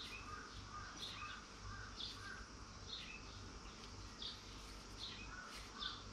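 Faint birdsong: a short chirping call repeated about once a second, over a low steady hum.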